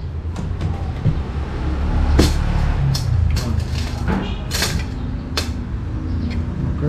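Low, steady rumble of engines from nearby street traffic, with several short, sharp clicks scattered through it.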